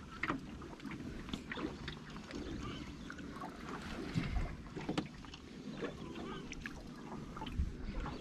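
Small boat rocking at sea: water slapping against the hull, with scattered irregular knocks and bumps against the boat.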